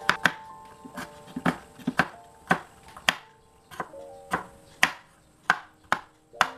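Kitchen knife slicing a carrot on a wooden cutting board: sharp knocks of the blade on the board about twice a second at an uneven pace, over soft background music.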